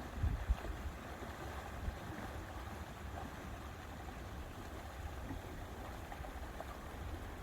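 Lakeside ambience: a steady low rumble and hiss of wind and water, with a couple of stronger gusts buffeting the microphone just after the start.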